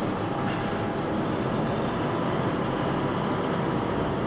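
Diesel engine of a heavy concrete-laden truck running steadily under light load as it reverses slowly, heard from inside the cab.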